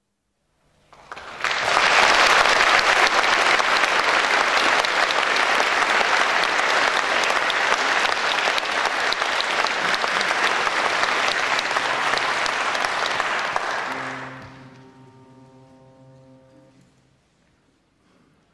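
Audience applauding, rising quickly about a second in, holding steady, then dying away after about 14 seconds. As the applause fades, a few steady held notes sound briefly.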